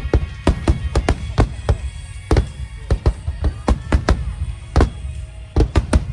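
Aerial fireworks going off in quick, irregular bangs, several a second, over music playing along with the display.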